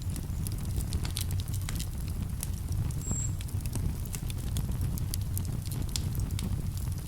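Wood campfire crackling, with many small irregular pops and snaps, over a steady low rush of a calm river.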